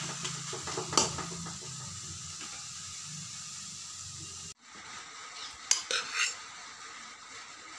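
Water spinach and potato bhujia sizzling in a pan over a low flame while a spatula stirs it, with a single clink about a second in. The sizzle cuts off suddenly a little past halfway, and a few light clinks of a spoon on a steel plate follow as rice is served.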